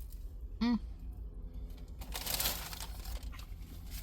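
A short hummed "mm" from the eater, then about two seconds in a brief burst of crinkling.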